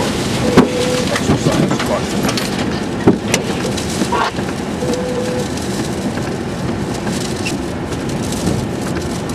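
Steady rush of heavy rain and wind on a vehicle in a tornado-producing storm, with scattered short knocks and a brief steady tone about half a second in and again about five seconds in.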